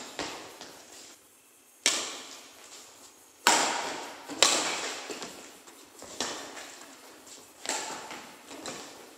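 Badminton rally: rackets striking a shuttlecock back and forth, about half a dozen sharp hits a second or so apart, each followed by a short ringing tail.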